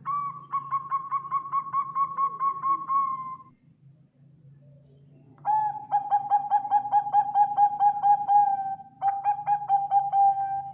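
Zebra dove (Bangkok perkutut) cooing: a phrase of quick, evenly repeated notes, about four a second, then after a pause of about two seconds two more such phrases at a lower pitch. A faint steady hum lies underneath.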